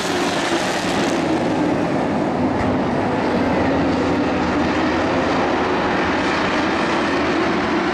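Engines of a pack of dirt-track race trucks running at speed around the oval, a loud, steady, blended drone.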